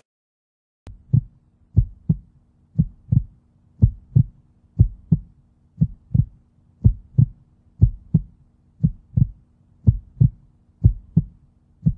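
Heartbeat sound effect: low double thumps repeating about once a second, starting about a second in, over a faint steady low hum.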